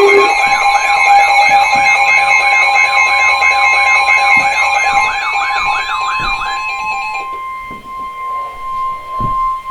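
Weather radio alert: a warbling electronic siren alarm over a steady, high single-pitch alert tone, the kind that comes before a NOAA Weather Radio warning. The warble stops about seven seconds in and the steady tone carries on alone.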